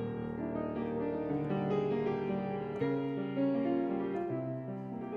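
Background piano music: slow, held notes and chords changing about once a second.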